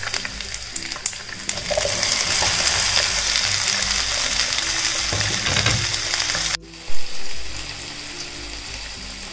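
Chopped onions and tomatoes sizzling in hot oil in a frying pan, over soft background music. About two-thirds of the way through it cuts to cabbage Manchurian balls deep-frying in a wok, bubbling more quietly, just after a brief loud knock.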